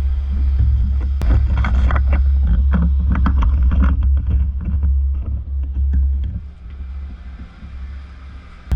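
Low wind rumble on the microphone with irregular rustling and clicks from movement, busiest in the first half and dying down near the end.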